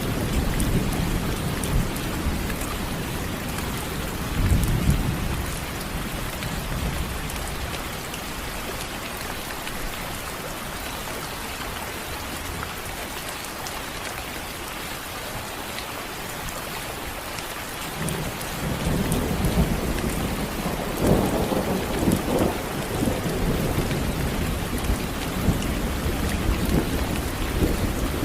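Steady rain falling, with thunder rumbling. One roll of thunder fades out in the first few seconds, and another builds from about two-thirds of the way in, loudest a few seconds later.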